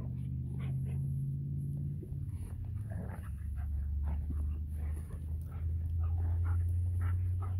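German Shepherd Dogs panting close by as they play in snow, in short irregular breaths, over a steady low hum.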